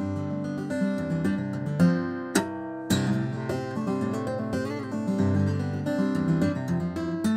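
Solo acoustic guitar played with both hands tapping and fretting on the fretboard, a quick run of ringing notes. A sharp percussive hit comes a little over two seconds in, with a short break before another hit restarts the notes.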